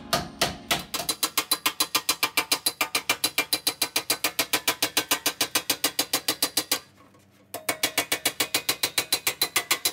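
Rapid, even hammer blows on sheet metal, about seven a second, as a planishing hammer dresses the flanged edge of a quarter panel against a steel block. The hammering stops for under a second about two-thirds of the way through, then carries on at the same pace.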